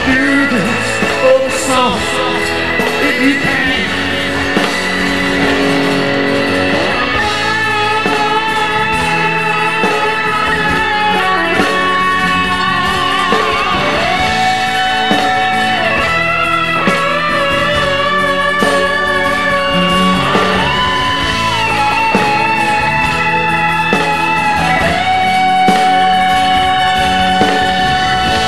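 Live rock band playing a slow Southern rock song, with an electric guitar solo taking over after the first few seconds: long held notes with bends and vibrato over drums, bass and rhythm guitar.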